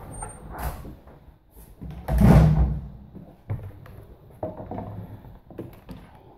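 A door being opened and pushed shut, with one loud thud about two seconds in, then a few light knocks.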